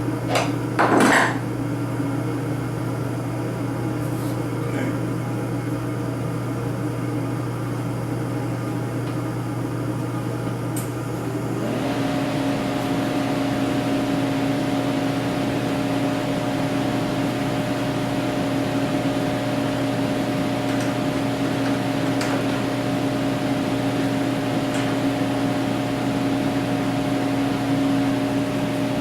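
A steady mechanical hum from a running machine, with a few knocks near the start. About twelve seconds in, its pitch steps up and a higher whine joins it, then holds steady.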